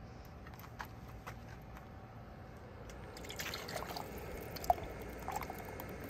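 Canned chicken noodle soup being poured from a pull-tab can into a metal electric kettle pot, pouring and dripping from about three seconds in, with small clicks of the can against the pot. A few faint clicks come before the pour as the can is opened.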